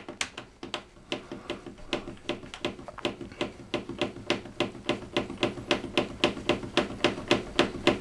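Control panel of a Beko WMB 71643 PTE front-loading washing machine clicking rapidly and evenly, about five times a second, as the delay-start button is worked and the delay time steps up in half-hour steps.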